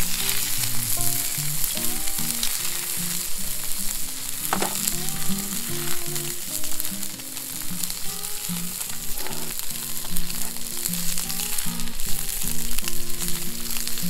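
A steady sizzling hiss, with soft background music playing a simple melody of short notes.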